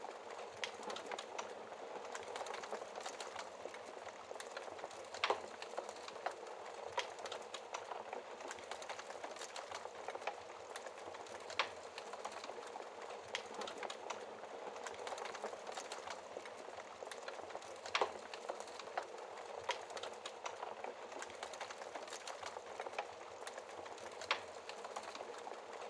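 Wood fire crackling: a steady hiss with irregular sharp pops and snaps, the loudest about 5, 12, 18 and 24 seconds in.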